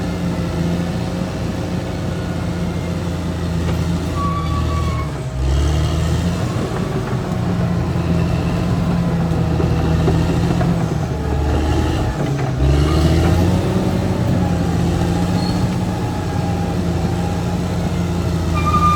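Caterpillar D6R XL bulldozer's diesel engine running steadily under working load. Its pitch dips and recovers twice, about five and twelve seconds in, with faint high squeals coming and going.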